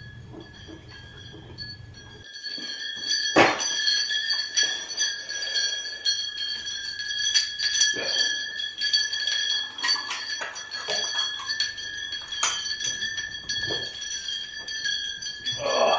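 Glass drops of an antique chandelier clinking and jingling as the light is handled and hung, with a few sharper knocks, over a steady high ringing.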